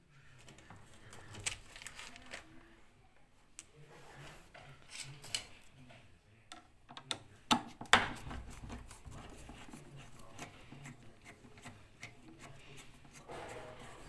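Tool handling at the underside of a washing machine: a long screwdriver clicks and scrapes against the metal base plate and pump housing, with a loud sharp knock about eight seconds in.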